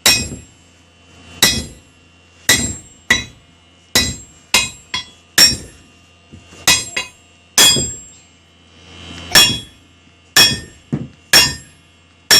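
Hand hammers striking a hot steel horseshoe on a forge, about fifteen irregular blows with a bright metallic ring after each, some in quick pairs.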